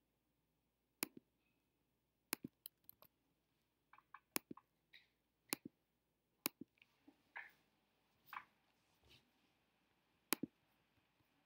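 Sharp clicks of a computer mouse and keyboard: about fifteen separate clicks, some single and some in quick pairs, with quiet gaps between.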